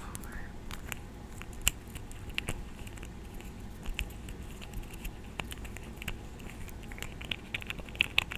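Close-miked ASMR mouth sounds: soft, irregular wet clicks and pops, several a second, with a small cluster near the end.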